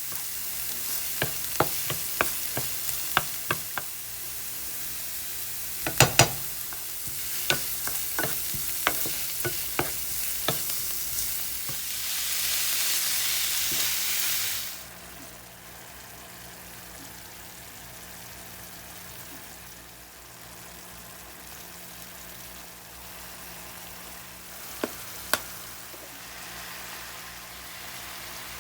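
Food sizzling in a frying pan, with a cooking utensil clicking and tapping against the pan over the first ten seconds or so. The sizzle swells, then drops suddenly to a quieter hiss about fifteen seconds in, and two more taps come near the end.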